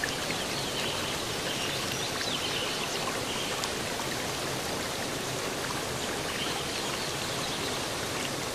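Steady running, trickling water: an even rush with light splashy detail.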